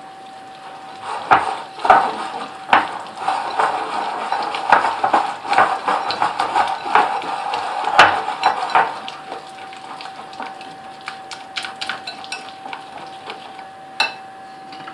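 A spoon scraping and clinking against a bowl and container, over and over for about eight seconds, as spoonfuls of icing sugar are scooped and tipped in. After that come a few lighter scattered ticks and a single knock near the end.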